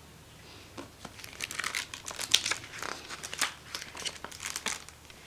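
Pages of a picture book rustling and crinkling as they are handled and turned, a run of short crackles lasting about four seconds.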